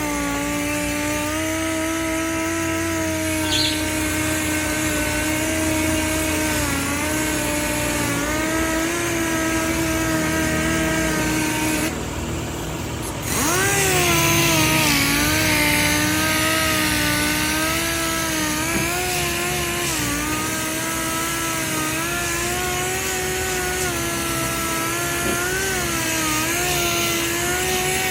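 Power sander running against a fiberglass stepside quarter panel, its motor whine wavering in pitch as it is pressed and moved over the surface. About twelve seconds in it cuts out for a moment, then spins back up and carries on.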